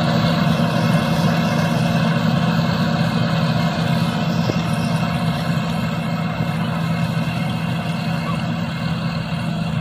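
Combine harvester running steadily, its engine and machinery giving a constant, unchanging drone.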